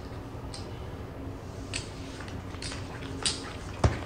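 Light clicks of casino chips and playing cards being dealt onto a blackjack table's felt, a few scattered clicks, then a sharper knock near the end.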